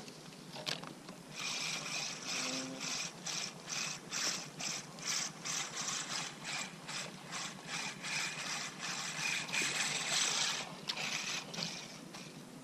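Spinning reel being cranked steadily, retrieving the line and a wobbler lure, with a rhythmic clicking whir of the gears at about two turns a second. It starts about a second in and stops shortly before the end.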